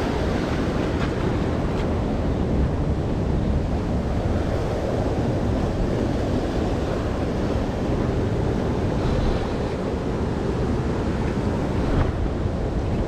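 Surf breaking and washing over a rocky shore, mixed with wind buffeting the microphone: a steady rumbling noise.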